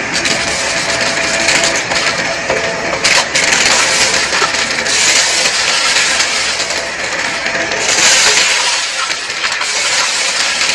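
Shark Navigator upright vacuum running over carpet and sucking up scattered bits of debris: a steady motor hiss thick with crunching and rattling as pieces go up the nozzle. The crunch swells a few times as it passes over thicker patches.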